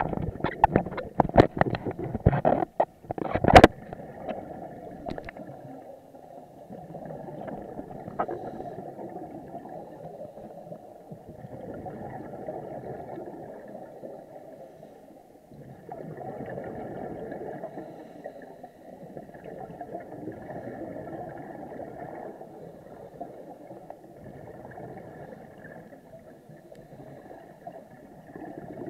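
Scuba regulator breathing heard through an underwater camera housing: muffled bubbling exhalations that swell and fade every three to four seconds. In the first few seconds there is a flurry of sharp clicks and knocks, the loudest about three and a half seconds in.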